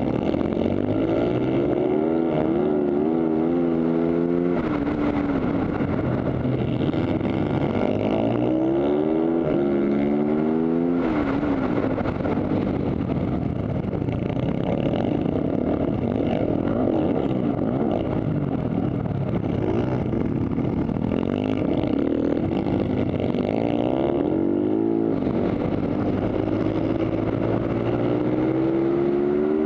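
Supermoto race bike's engine at race pace, heard onboard: its pitch climbs in long rising sweeps under acceleration and drops off sharply between them, three times, with another climb starting near the end.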